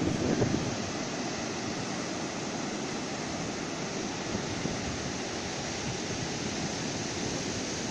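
Steady rush of rough surf breaking along a sandy beach, mixed with wind on the microphone, a little stronger in the first second.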